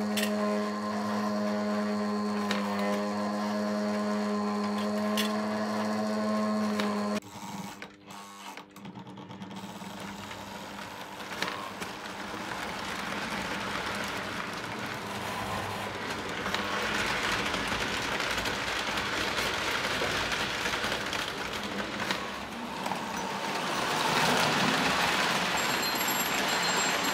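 Lionel lumber loader's electric conveyor mechanism humming steadily, then cutting off suddenly about seven seconds in, with a few clicks. A Lionel O gauge train then rolls along the track, its running noise building toward the end.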